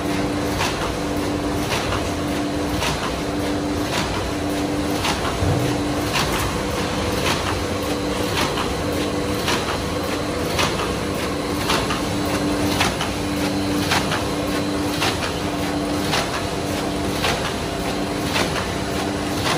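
Automatic paper lunch-box forming machine running at speed: a steady mechanical clatter with regular sharp clacks about twice a second and a hum that pulses on and off about once a second as each box is formed and pushed out.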